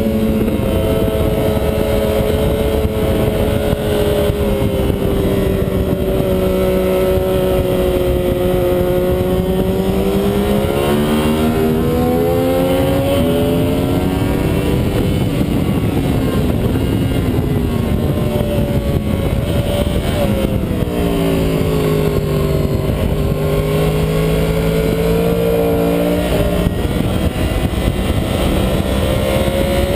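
2009 Yamaha R1's crossplane inline-four engine running at track speed, heard from a camera on the bike with constant wind rush. The engine note sags slowly, rises around twelve seconds in, drops back around twenty-one seconds and climbs again near the end.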